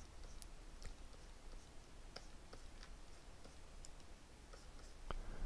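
Faint, irregular clicks and taps from a graphics-tablet pen and computer keys used during digital sculpting, over a low steady hum, with one sharper click near the end.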